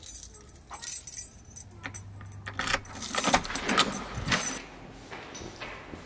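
Keys jangling, with scattered clicks and knocks.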